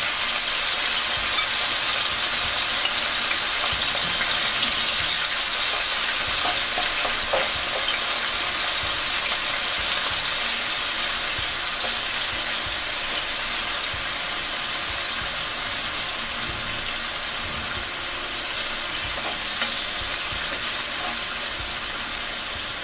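Thin slices of marinated beef sizzling steadily in a frying pan, gradually easing a little. A few light clicks come from metal tongs against the pan as the slices are turned.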